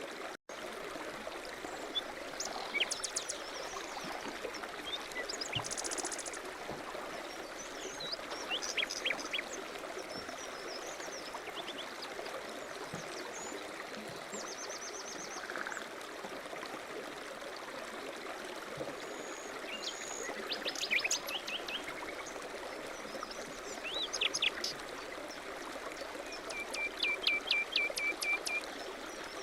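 Small birds chirping and trilling every few seconds over a steady rush of running water.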